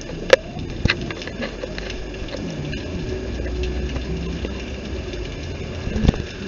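Handling noise from a handheld camera being swung about: rubbing and knocking against hand and clothing, with a few sharp clicks about a third of a second in, near one second and again about six seconds in, over a steady low rumble.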